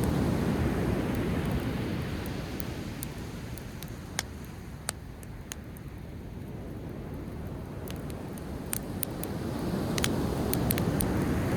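Driftwood campfire crackling with scattered sharp pops, over the rush of sea waves that swells, ebbs away and swells again near the end.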